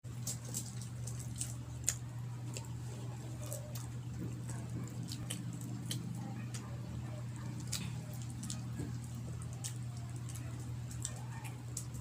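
A steady low hum with faint, scattered sharp clicks over it.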